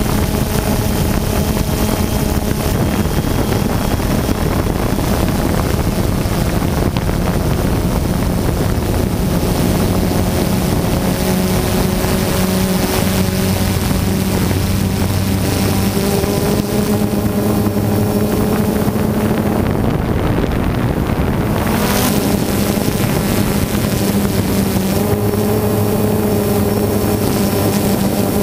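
Camera drone's motors and propellers running, a steady hum whose pitch steps up slightly a couple of times as the motor speed changes, with wind on the microphone. A short burst of noise about three quarters of the way through.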